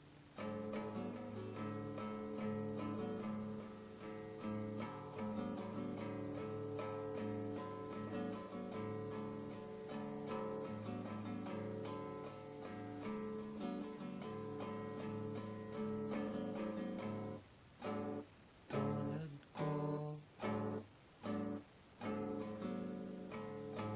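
Acoustic guitar strummed in an instrumental interlude, chords ringing on one another. About three-quarters of the way through, the playing turns to short, choked strums with brief gaps between them, roughly every two-thirds of a second.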